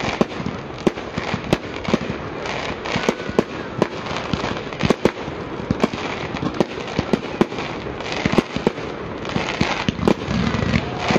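Fireworks display: a rapid, irregular series of sharp bangs from shells and barrage shots, about two or three a second, over a continuous crackle of sparks.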